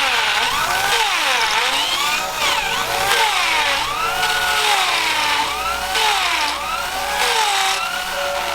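A power tool's motor running, its pitch dipping and recovering again and again, about once a second, over a steady hiss.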